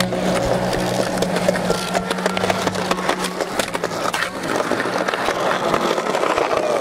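Skateboard wheels rolling over rough asphalt: a steady grinding rumble with many small clicks and knocks.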